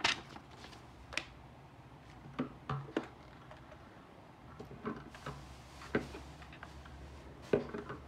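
Paper rustling at the start, then a scattered series of light knocks and taps as a plastic radio transmitter and a foam model plane are handled and set down on a wooden tabletop.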